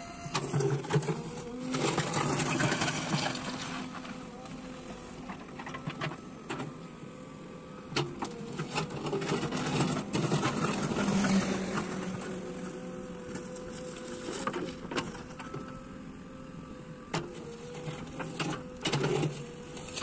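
JCB backhoe loader's diesel engine running under load, its pitch wavering, while the backhoe bucket scrapes through rocky soil with scattered knocks of stone. The engine gets louder twice, about a second in and again around ten seconds in.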